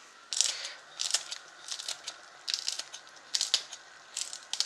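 Kitchen scissors snipping a green chili pepper into slices: a series of about eight short, crisp snips, roughly one every half second to second.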